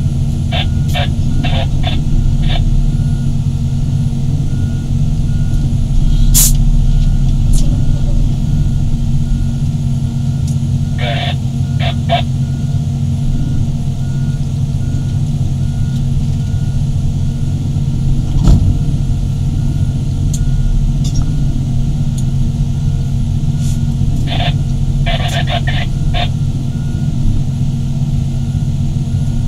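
Large hydraulic excavators' diesel engines running steadily under load. Short bursts of beeping come three times, typical of a machine's travel or reversing alarm. A single sharp knock comes about two thirds of the way through.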